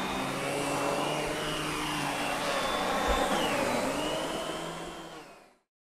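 Miele canister vacuum with an SEB-236 electric power nozzle running on carpet, a steady rushing hum whose pitch wavers slightly. It fades out near the end.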